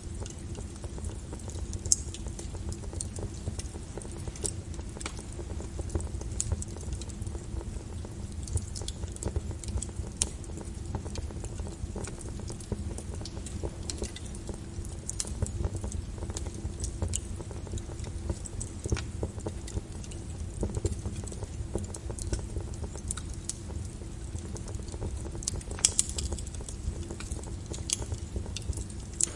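Wood fire burning in a fireplace, crackling and popping irregularly over a steady low rumble of the flames, with a couple of louder pops about two seconds in and near the end.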